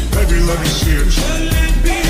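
Loud music with a heavy bass beat.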